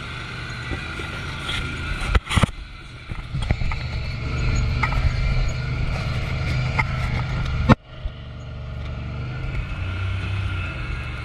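Vehicle engine and road noise, a steady low drone of a vehicle under way. Two loud, sharp knocks break it, one about two seconds in and another later on.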